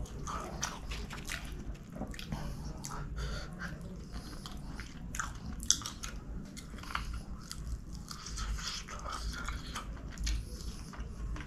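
Close-miked eating of chicken kottu roti by hand: wet chewing and lip smacking with many small clicks, and one sharper smack a little after halfway.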